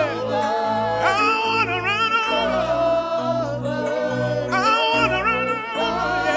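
Worship music: singers holding long, wavering sung lines over a steady bass and keyboard accompaniment, without words the recogniser could make out.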